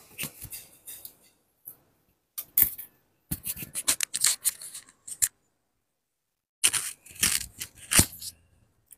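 Irregular bursts of scraping and clicking, in several short clusters, with a silent gap of about a second past the middle.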